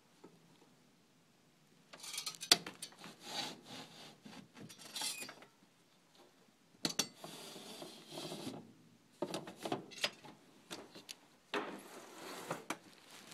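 Rubbing and scraping close to the microphone in four bursts of a second or two each, with sharp clicks among them, after about two seconds of near quiet.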